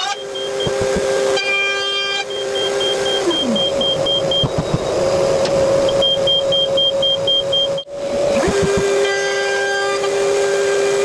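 Router in a homemade router table running with a steady high whine, together with a shop vacuum on the dust-extraction hose. About three seconds in, one motor winds down to a stop, and it starts up again about eight and a half seconds in, with a few low knocks of wood being handled.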